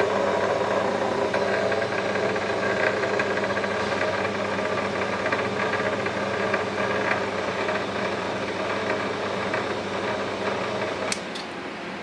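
Electric scrap-wire stripping machine with a 1 HP motor running, a steady motor hum with a rattling mechanical texture. About eleven seconds in there are two sharp clicks, and the sound drops to a quieter steady hum.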